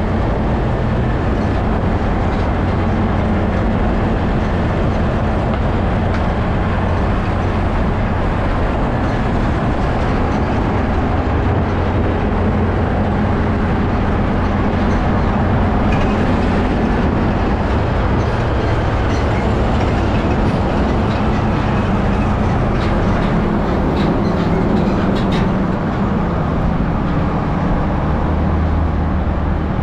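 Steady rumble of a container semi-truck on the move at close range: its diesel engine and heavy tyres running together with road noise.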